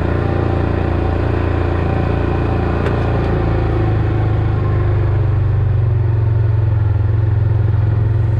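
Vehicle engine running steadily, a continuous low drone.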